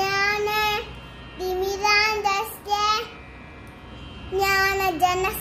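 A young boy chanting a Sanskrit sloka in a sing-song voice: three drawn-out phrases on held notes, with short pauses between them.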